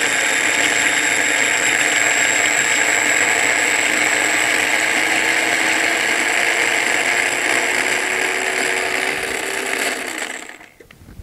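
Small electric mini food chopper running steadily, chopping peanuts and red pepper flakes. It gives a loud motor whine with the blades whirring, its pitch rising slightly, then stops and winds down about ten seconds in.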